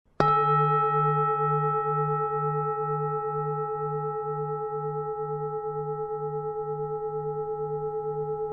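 A Buddhist bowl bell struck once, ringing on in a long, slowly fading tone with a steady wavering pulse of about two beats a second. It is sounded to close the meditation teaching.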